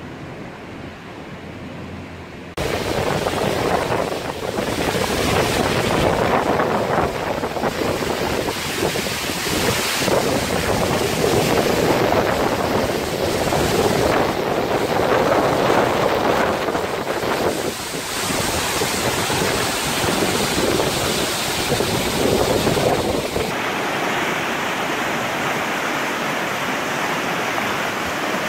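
Waterfall pouring down a rock face close by: a loud, even rush of falling water and spray, with gusts of wind buffeting the microphone. It cuts in about two seconds in over a quieter outdoor rush. Near the end it changes to the steadier rush of a fast, churning river.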